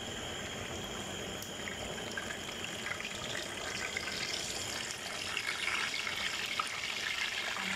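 Hot oil sizzling and crackling in a frying pan as lemon-marinated fish pieces are laid in to fry. It gets fuller and louder about halfway through as more pieces go in.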